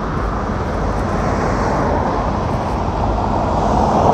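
Steady engine rumble of a large vehicle running close by, mixed with street traffic noise, growing a little louder near the end.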